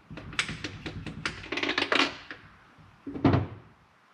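Metal hand tools working on engine parts: a quick run of clicks and light taps, then one heavy thunk a little over three seconds in.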